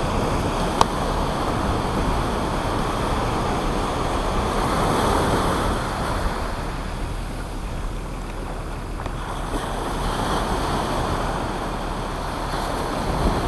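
Surf breaking and washing up a beach as a steady rushing wash. There is a single sharp click about a second in.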